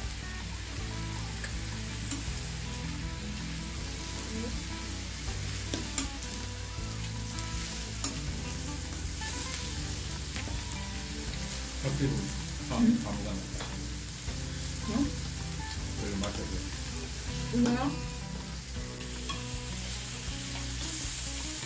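Beef slices sizzling on a round tabletop grill pan over a portable gas burner, a steady hiss throughout. A few clicks and brief louder sounds come through the middle.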